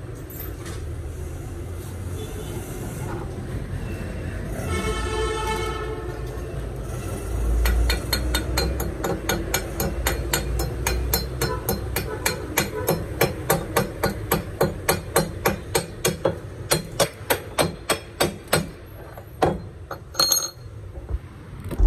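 Rapid metal-on-metal hammer strikes, about three to four a second for roughly ten seconds: slag being chipped off a fresh stick-welding bead on a steel plate.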